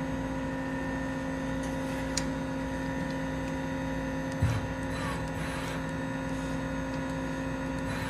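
Steady hum of a powered-up Daewoo Lynx 200B CNC turning center while its tailstock quill retracts. A light click comes about two seconds in and a single thump about halfway through.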